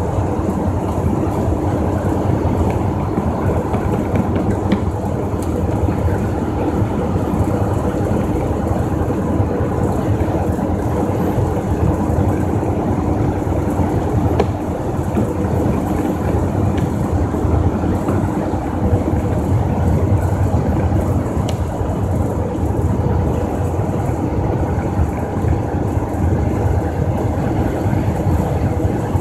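Steady drone of a tractor-trailer's diesel engine and tyre and road noise inside the cab at highway cruising speed, with a constant low hum.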